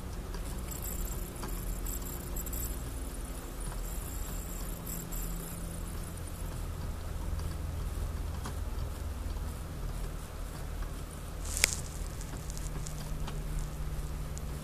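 Steady low rumble of background noise with a few faint ticks, and one sharp click near the end.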